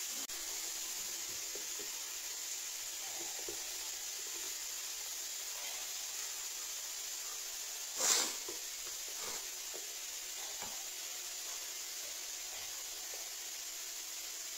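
A borzoi mouthing and chewing a feathered toy: faint soft clicks and rustles over a steady hiss, with one louder brief rustle about eight seconds in.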